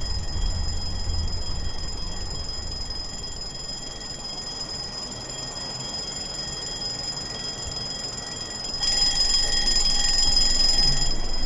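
Sony smartphone alarm ringing with a steady high electronic tone. It grows louder about nine seconds in.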